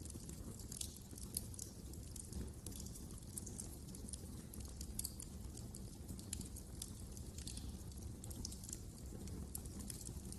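Wood fire in a fireplace crackling, with frequent small sharp pops and snaps at irregular intervals over a low steady rumble.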